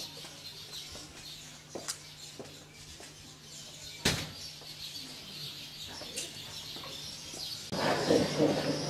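Faint birds chirping over quiet ambience, with a few sharp clicks from a metal-framed glass door being handled, the loudest about four seconds in. The background gets louder near the end.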